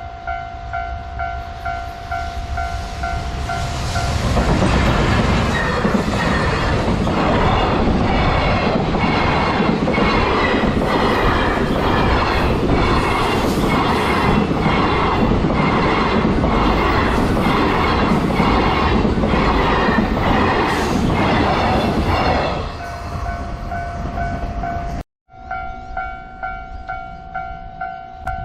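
A Japanese level-crossing warning bell rings in a steady, repeating two-tone clang. About four seconds in, a freight train hauled by an EF210 electric locomotive passes at speed. Its wagon wheels give a regular clickety-clack over the rail joints for about eighteen seconds, and then the crossing bell is heard alone again.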